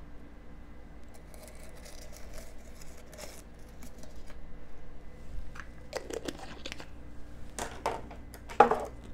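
Hands pushing bay leaves into a glass jar packed with vegetables. Soft handling noise at first, then several sharp clicks and knocks in the second half, the loudest near the end.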